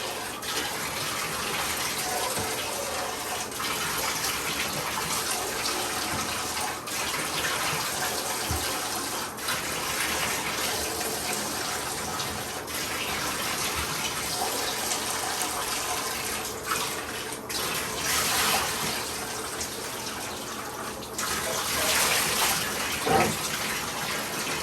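Water running into a bathtub from the tap, splashing steadily as the puppies are rinsed off, a little louder for a few seconds near the end.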